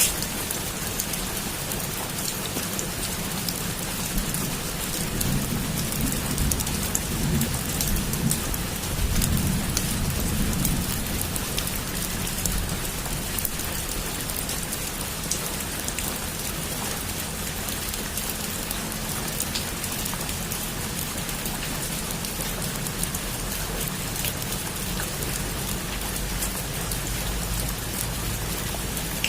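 Heavy rain beating steadily on a rooftop, a dense even patter, with a low rumble of thunder swelling and fading in the first half.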